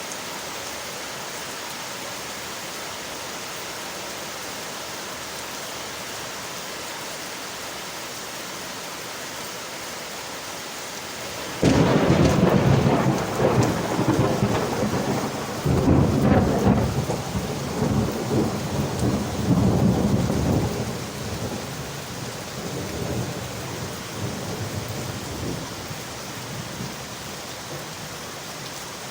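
Steady rain on window glass; about twelve seconds in, a loud clap of thunder breaks in suddenly and rolls on in several swells for about ten seconds before fading back under the rain.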